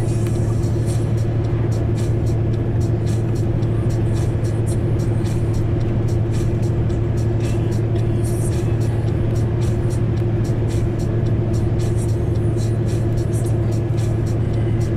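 Steady drone of a Scania R500 truck's engine and road noise inside the cab at cruising speed, with music playing underneath.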